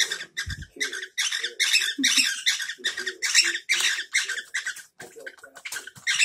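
Pet cockatiel chattering in a rapid run of short chirps.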